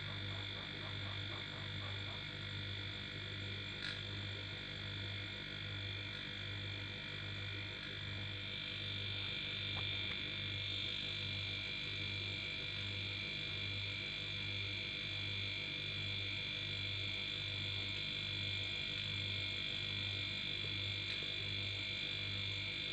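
A repurposed split air-conditioner compressor running as an air compressor, giving a low hum that throbs at an even rate of about one and a half pulses a second, with a steady high whine above it.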